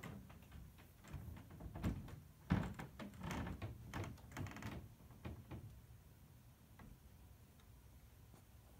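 A flurry of soft knocks, clicks and thumps, loudest about two seconds in and again half a second later, dying away after about five and a half seconds.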